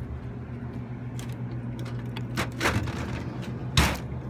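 A few sharp clicks and knocks from handling at an open snack vending machine, the loudest near the end, over a steady low electrical hum.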